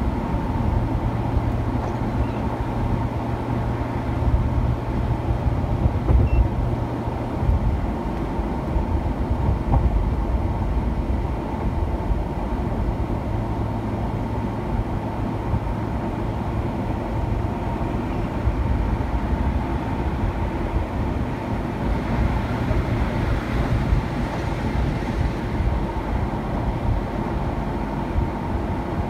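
Steady road noise heard from inside a car cruising at highway speed: tyre and engine noise, with a low drone that drops out for several seconds after the first quarter and then comes back.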